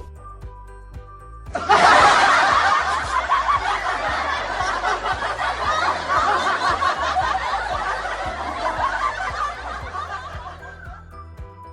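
Laugh-track sound effect of many people laughing together. It comes in suddenly about a second and a half in and fades out near the end, over steady background music.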